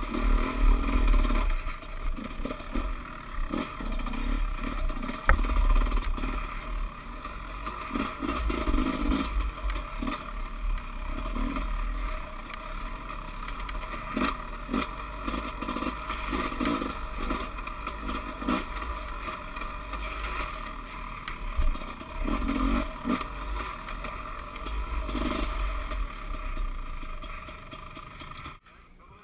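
Dirt bike engine running while riding a rough trail, with the clatter and knocks of the bike over rocks and roots. The sound drops away briefly near the end.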